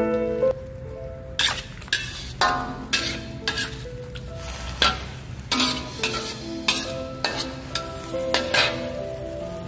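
A spatula scraping and knocking against a metal wok as corn, tomato and chillies are stir-fried in sizzling oil, in uneven strokes about one to two a second.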